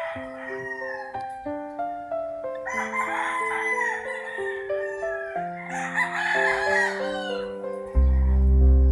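A rooster crowing twice, each crow lasting a second and a half or more, over background music of stepping melodic notes; a deep bass comes into the music near the end.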